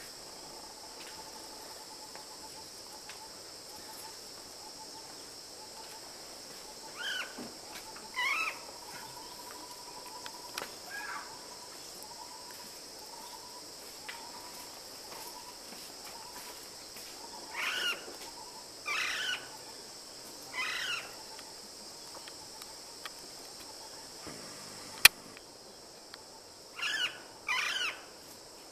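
Steady high insect buzzing of forest cicadas or crickets, with a bird giving short wavering calls: once or twice in quick succession about 7 and 8 seconds in, once near 11 s, three times between about 18 and 21 s, and a quick pair near the end. A single sharp click sounds about 25 seconds in.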